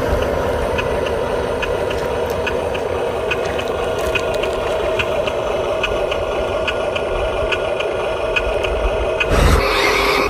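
Small electric motor of a radio-controlled construction model running steadily with a whine and a regular light ticking, about two to three ticks a second. The sound shifts about nine seconds in.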